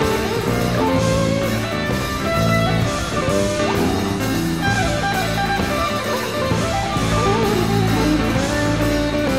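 Live rock band playing: an electric guitar solo of held, bending single notes over bass and drums.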